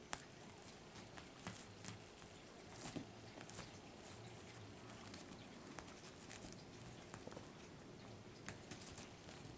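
Faint, irregular light taps and scuffles: a six-week-old Bengal kitten's paws and claws on a blanket as it pounces on and bats a feather wand toy.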